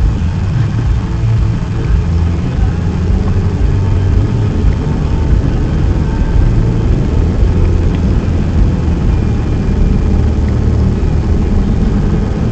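Car being driven through a snowstorm: a steady low rumble of engine and road noise.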